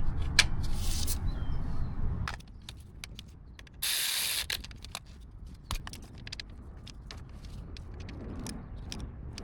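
Hand tools clicking and tapping as a ratchet works the 13 mm nut on the alternator's main power cable, with a short hiss about four seconds in.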